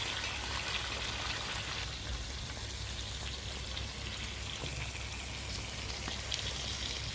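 Chicken pieces sizzling in hot oil and butter in a pan: a steady hiss with small crackles.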